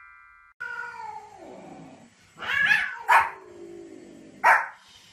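A white Pomeranian barking three times in short, loud barks, about two and a half, three and four and a half seconds in. The barks follow a long cry that falls in pitch.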